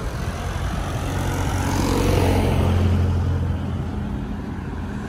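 A motor vehicle passing close by on the road: its engine hum and tyre noise swell to a peak about two to three seconds in, then fade.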